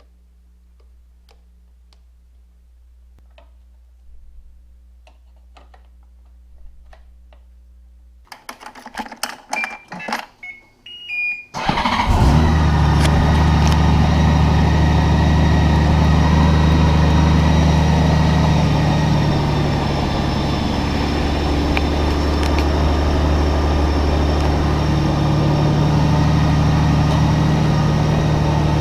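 Faint clicks of small parts being handled, then a run of clicks and a few short beeps, and about twelve seconds in a Honda Gold Wing GL1800's flat-six engine starts and idles steadily.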